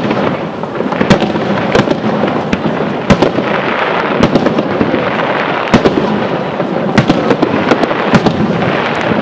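Aerial firework shells bursting in a display: sharp bangs at irregular intervals, about one or two a second, over a continuous rumbling noise.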